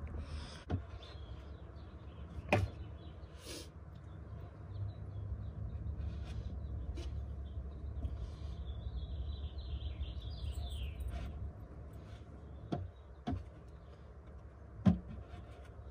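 A few light knocks of a wooden board being handled against a plywood platform, the sharpest one near the end. A low rumble runs through the middle, with a bird chirping faintly.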